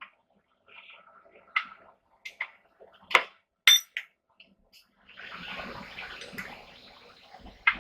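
Hammer work on steel at the anvil: a few sharp, ringing metal clinks, the loudest about three seconds in. Near the end comes a rushing, water-like hiss lasting about two and a half seconds, then one more clink.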